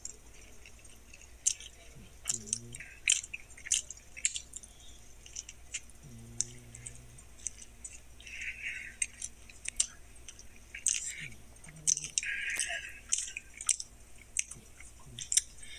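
A person chewing a mouthful of a soft bun sandwich: irregular wet mouth clicks and smacks, with a couple of short low hums.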